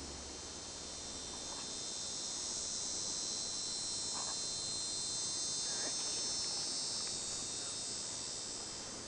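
Steady high-pitched chorus of insects chirring, swelling a little toward the middle.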